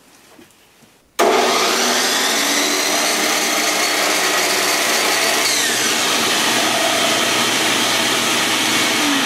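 A Harbor Freight compound miter saw's motor and a wet-dry shop vac start together about a second in and then run loud and steady, with the saw not cutting. Switching on the saw brings on the vac through an automatic power-sensing switch.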